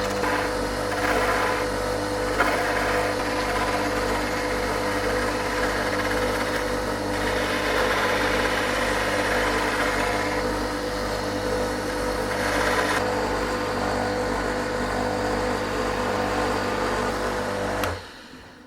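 Old lathe running on its noisy electric motor, a steady hum with a constant whine, while a blunt hand tool cuts a piece of curtain rail, giving a rough, uneven scraping over the top. The motor is switched off near the end and the sound stops abruptly.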